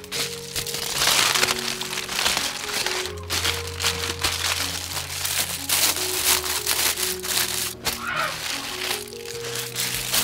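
Aluminium foil crinkling and crackling as hands fold and press it around a chicken, over background music.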